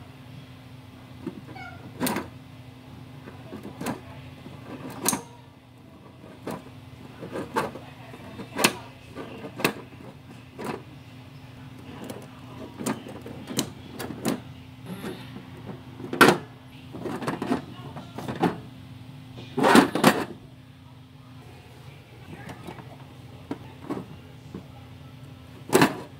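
Plastic wrestling action figures being knocked together and slammed onto a toy ring's mat: an irregular string of sharp knocks and taps, with several louder hits, the loudest past the middle and just before the end. A steady low hum runs underneath and stops a little after three-quarters of the way through.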